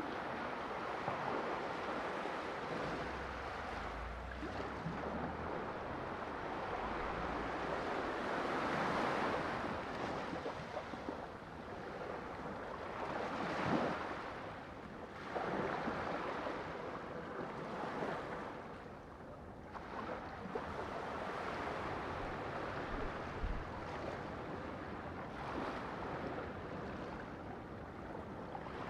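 Sea waves surging and washing in, a steady rush of water that swells and eases every few seconds.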